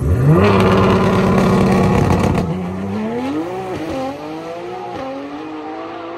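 Race car engine at a drag race: it revs up sharply, holds high revs loudly for about two seconds, then pulls away with the pitch climbing in steps through several gear changes while the sound fades.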